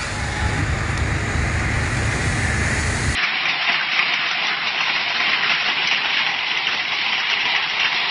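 Storm sound with no tones: rushing water with a deep, steady rumble underneath, then an abrupt cut about three seconds in to a dense, steady hiss of heavy rain or hail pelting down.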